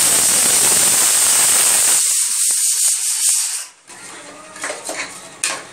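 Ginger-garlic paste sizzling loudly in hot ghee in a pressure cooker, dying away after about three and a half seconds. Then a steel ladle scrapes and clicks against the pot as the rice is stirred.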